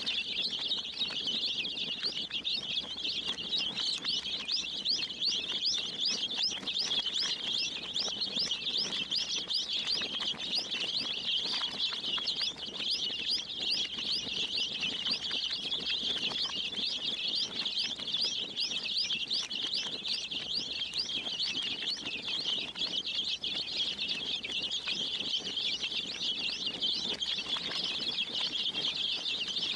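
A large flock of baby chicks peeping nonstop, a dense chorus of many overlapping high, rapid cheeps.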